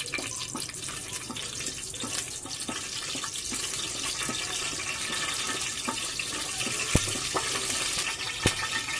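Whole garam masala spices frying in hot oil in a pressure cooker: a steady sizzle with small crackles as they are stirred with a wooden spoon. Two sharp clicks, about seven and eight and a half seconds in.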